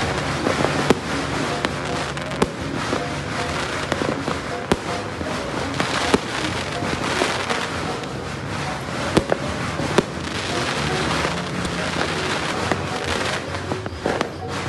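Fireworks going off continuously: a dense crackling din with many sharp bangs at irregular intervals.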